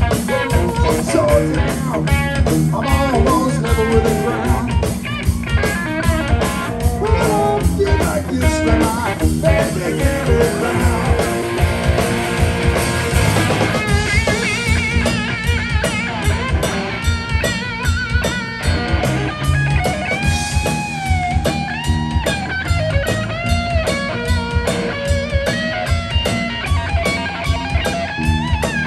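Live blues band playing without vocals: an electric guitar takes the lead with sustained, bent notes over bass guitar and a drum kit keeping a steady beat.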